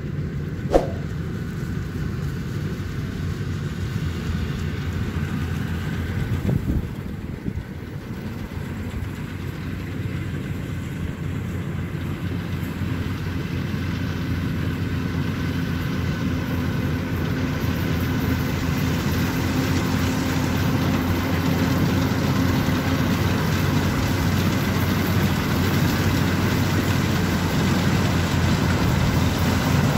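Yanmar YH 850 combine harvester running steadily while harvesting rice, gradually growing louder as it approaches. A single sharp click about a second in.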